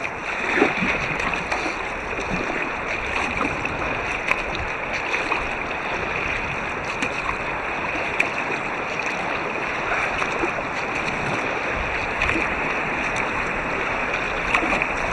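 Steady rush of river water around an inflatable kayak, with a few faint clicks, heard muffled through a waterproof camera housing.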